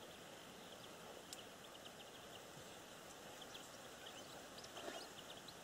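Quiet lakeside ambience: a faint steady hiss with scattered short, high chirps.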